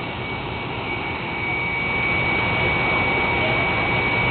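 Air blower of an inflatable Velcro wall running, a steady rushing drone with a thin high whine held on one pitch. It gets slightly louder about a second and a half in.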